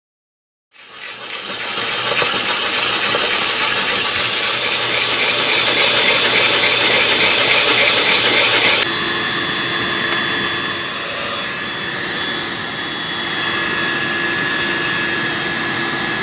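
Home coffee-roasting setup running, with a loud steady rush of air and motor as coffee beans churn in a bread-machine pan. About nine seconds in, the sound drops to a quieter steady hum with a thin whine.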